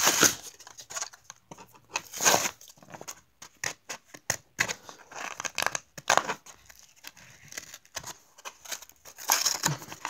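A die-cast toy car's blister pack being torn open by hand: the cardboard backing card ripping and crackling as it is pulled off the clear plastic bubble, in irregular bursts with short pauses between.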